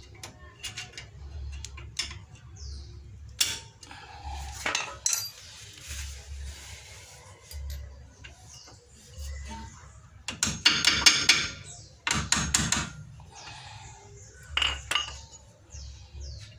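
Small metal disc-brake parts clinking and scraping as they are handled and fitted by hand, with a louder stretch of rattling about two-thirds of the way through.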